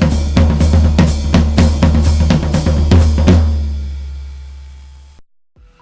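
Intro music: a fast drum-kit beat with snare, cymbals and a heavy bass, which stops about three and a half seconds in, leaving a low bass note that fades and cuts off just after five seconds.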